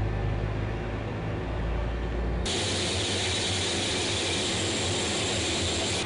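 A-10's twin TF34 turbofan jet engines running on the ground. A steady low rumble gives way suddenly, about two and a half seconds in, to a loud, even jet hiss.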